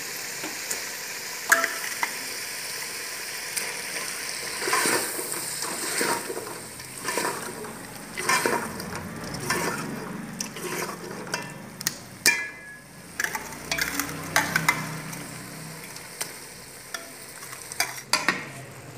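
Mashed turnips and meat frying in oil and spices in a metal pot, sizzling steadily while a ladle stirs. The ladle scrapes and knocks against the pot in a run of sharp strokes from about five seconds in, after a few single clinks.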